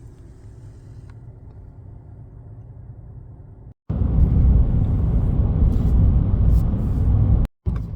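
Road noise inside a moving vehicle's cab, in cut-together clips. First a steady, moderate hum with faint engine tones. Then, after a sudden cut a little under four seconds in, a much louder low rumble.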